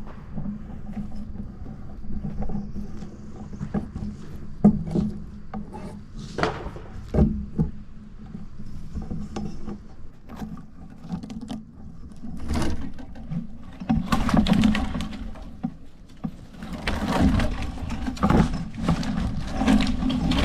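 Irregular knocks, scrapes and rustles, busier near the end, over a steady low hum.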